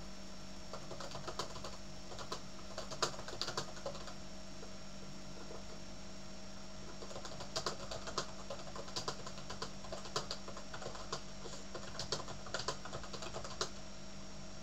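Typing on a computer keyboard: irregular runs of quick key clicks, pausing for a few seconds in the middle, over a steady low hum.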